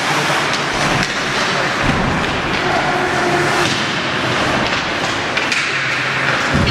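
Ice hockey arena din during play: a steady hubbub of crowd voices with a few sharp thuds of the puck and players against the boards.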